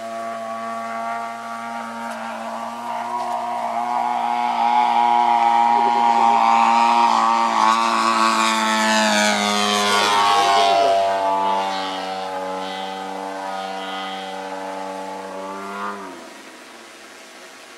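120cc petrol engine of a large radio-controlled aerobatic plane (Goldwing Corvus Racer) running at steady throttle. It grows louder as the plane flies past low, dips slightly in pitch as it goes by, then fades. About sixteen seconds in it is throttled back, dropping in pitch and loudness.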